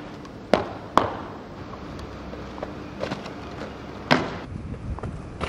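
A few sharp knocks: two close together, half a second apart, near the start, some faint ticks, then a louder ringing knock a little past four seconds, over a low steady hum.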